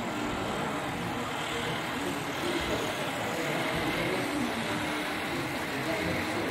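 Steady background noise of a model railway exhibition hall: a low, even rumble with faint murmuring voices.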